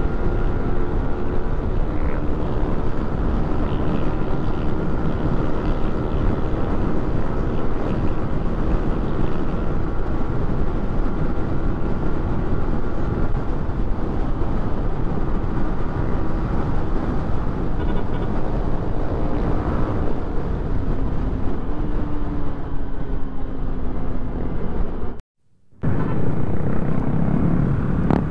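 Motorcycle engine running steadily at cruising speed, mixed with wind rush on the handlebar-mounted camera's microphone. The engine note eases down slightly near the end, and the sound drops out for about half a second.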